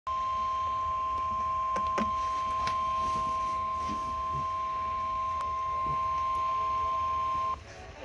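NOAA Weather Radio's steady 1050 Hz warning alarm tone played through a Midland weather radio's speaker, with a fainter lower tone beneath it, announcing a special marine warning. It cuts off suddenly near the end, with a few faint clicks along the way.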